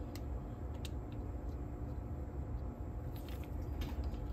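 A few faint, short clicks of small tools and parts being handled on a cassette deck's tape transport during capstan end-play adjustment, over a steady low hum.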